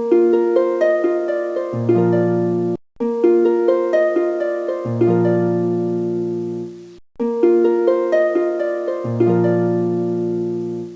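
Background music of plucked-string notes playing a short melody on a loop, broken by brief silent gaps about every four seconds.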